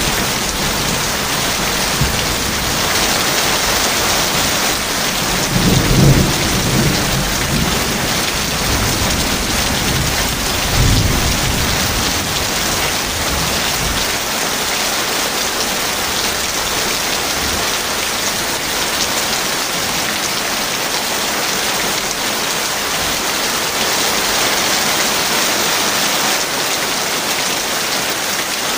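Heavy rain falling steadily, with deep thunder rumbling through the first half, swelling about six seconds in and again near eleven seconds, then dying away while the rain carries on.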